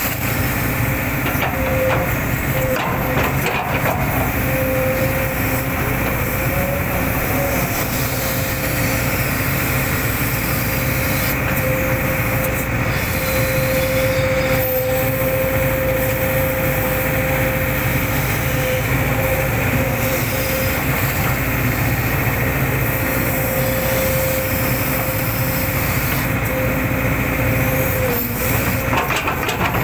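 Hitachi hydraulic excavator running steadily while working, with a steady whine that wavers in pitch in places and a few short knocks near the start and near the end.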